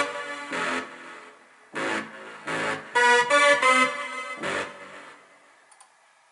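Synth preset from the Hypnotic Dance sound set for Steinberg HALion 3, played live from a keyboard: a series of short pitched chords and notes, each struck and decaying, with several in quick succession about three seconds in, then dying away to near silence after about five seconds.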